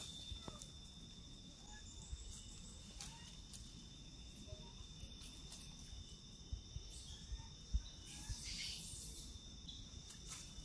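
Forest insects droning steadily at a high pitch, with a few faint chirps and small clicks. There is a brief louder hiss about eight seconds in.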